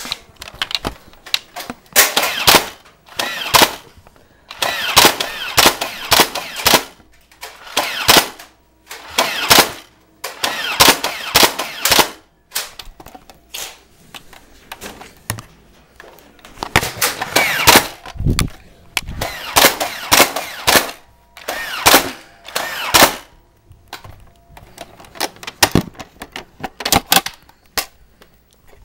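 Repeated bursts of rapid gunfire, about ten volleys of fast shots, each lasting one to two seconds with short pauses between.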